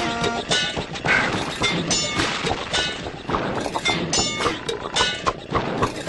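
A rapid string of short cartoon sound effects, about two or three a second: knocks, crashes and brief pitched tones.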